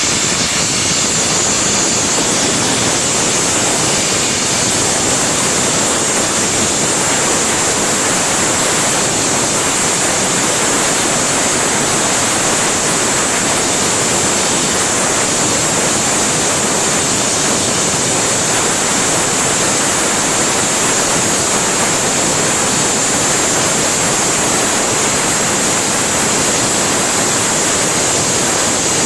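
Gas-air blast burner of a glass-blowing lathe running steadily, its flame playing on a turning glass tube: an even, loud rushing hiss with a sharper high hiss on top.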